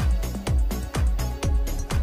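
Background electronic dance music with a steady four-on-the-floor kick drum, about two beats a second.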